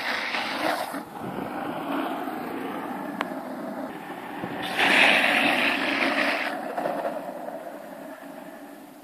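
Longboard wheels rolling fast on rough asphalt, with the wheels sliding sideways over the road surface. The loudest slide comes about five seconds in and lasts nearly two seconds.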